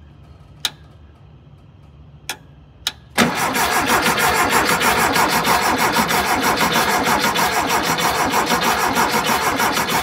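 A few sharp clicks, then from about three seconds in a VW Thing's air-cooled flat-four is cranked on the starter motor, turning over steadily without catching: fuel is not yet reaching the carburettor.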